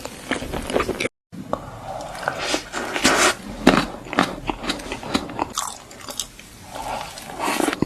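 Close-miked eating: repeated bites and wet chewing with crisp crunches. The sound cuts out for a moment about a second in.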